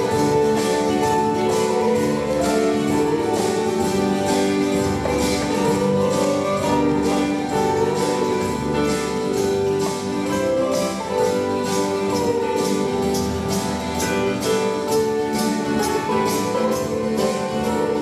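Live instrumental music: an electronic keyboard playing held chords and a melody over a steady beat of hand-drum strokes, about three a second.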